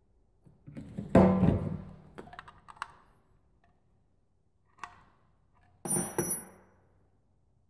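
Metal hand tools and alternator parts handled on a wooden workbench: a loud knock with a short rattle about a second in, a small click near five seconds, and a ringing metallic clink about six seconds in as a socket is picked up.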